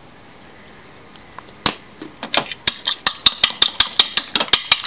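Metal fork beating an egg on a ceramic plate, the tines clicking against the plate about six times a second, starting about two seconds in.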